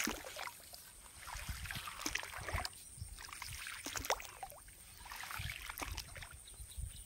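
Irregular rustling and light crackles of dry grass and a nylon net bag being handled, with low wind rumble on the microphone.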